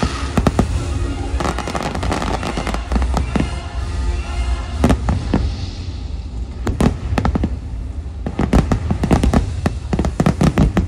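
Fireworks shells bursting in quick volleys: many sharp bangs over a deep, steady rumble, coming thickest about five seconds in, around seven seconds, and in a dense run near the end.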